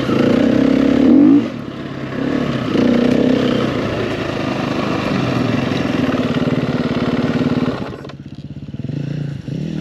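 KTM dirt bike engine running under way, its revs rising and falling. About eight seconds in it drops to a lower, quieter note.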